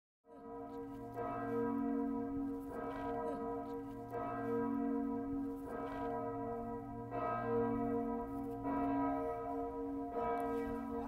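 Large bells ringing, a fresh strike about every second and a half, each tone ringing on under the next.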